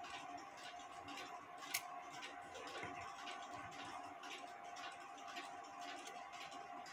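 Faint ticking and light clicks from a Smiths mantel clock's brass movement as its levers and wheels are handled, with one sharper click a little under two seconds in, over a faint steady tone.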